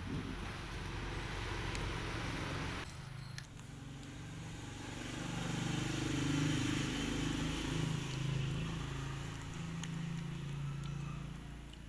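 A motor engine hums steadily, swelling to its loudest in the middle and fading away near the end. Before it, a steady hiss cuts off suddenly about three seconds in.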